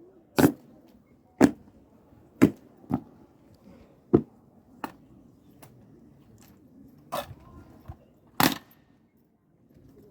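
Ceremonial guards' boots stamping hard. The first three stamps come about a second apart, then sharp knocks follow at irregular gaps over a faint background murmur.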